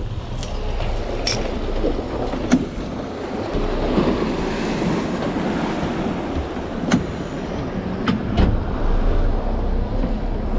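Sea washing and wind buffeting the microphone in a steady rush with a low rumble, broken by several short sharp knocks.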